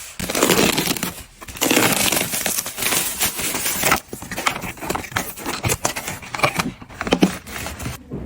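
Packaging being crinkled and torn open in two long rustling stretches, followed by scattered light clicks and knocks.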